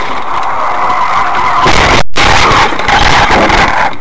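Loud, harsh rushing noise of a car on the road, heard through a dashcam, breaking off for an instant about two seconds in.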